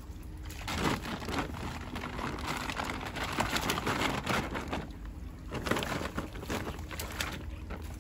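Stream water splashing and dripping as a wet cast net is pulled and worked in the shallows, in two long spells of crackly splashing over the steady flow of the stream.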